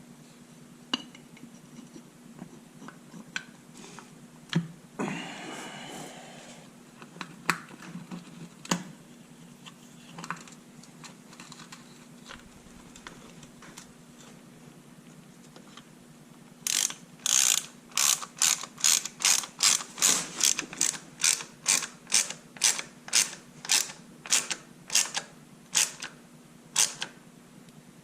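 Hand socket ratchet clicking in steady back-and-forth strokes, about two a second, over the last third. Before that come scattered clicks and a brief scrape of tools and parts being handled.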